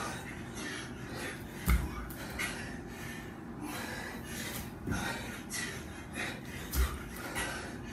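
Person doing burpees barefoot on a tiled floor, breathing hard in repeated noisy breaths. Two dull thumps on the floor come about five seconds apart.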